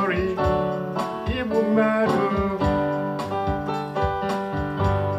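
Electronic keyboard playing a song accompaniment with held chords and a steady beat; a voice sings a short phrase at the start.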